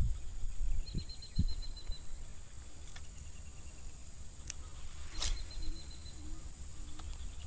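Insects (crickets) chirping steadily at a high pitch in a swampy marsh, with a short rapid trill about a second in and again more faintly around five seconds. A few sharp clicks come around the middle, over a low rumble.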